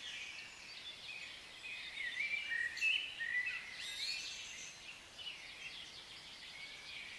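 Several birds singing, overlapping chirps and warbling, sliding notes, loudest about three seconds in.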